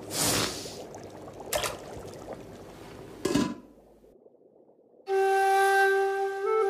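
A few short rushing sound effects in the first three and a half seconds, then a brief hush. About five seconds in, a melody of long held notes starts.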